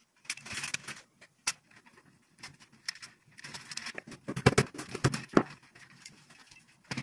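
Handling noise from a metal-cased electronic ballast and its wires being positioned on a tube light's sheet-metal batten: scattered clicks, knocks and rustling, with a cluster of sharper taps about four to five and a half seconds in.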